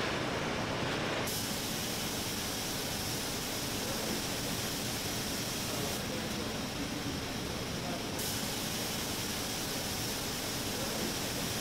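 Steady hiss of spray-painting guns and paint-booth air in a car-body paint shop. The tone shifts abruptly a second in and again around six and eight seconds.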